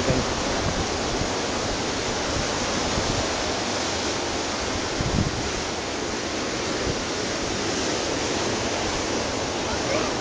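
A steady rushing noise, even and unbroken, with a short low knock about five seconds in.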